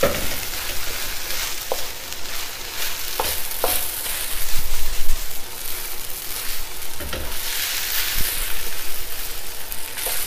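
Fried rice sizzling in a hot wok while a wooden spatula stirs and turns it, with scattered short knocks and scrapes of the spatula against the pan.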